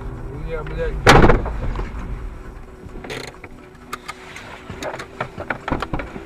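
Vehicle collision: one very loud crash impact about a second in, with steady low road rumble under it that fades after the hit. Scattered smaller knocks and clicks follow over the next few seconds.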